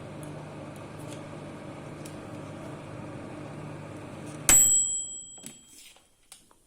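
Microwave oven running with a steady hum, then stopping about two-thirds of the way in with its end-of-cycle beep, a single high tone that fades over about a second, followed by a few faint clicks.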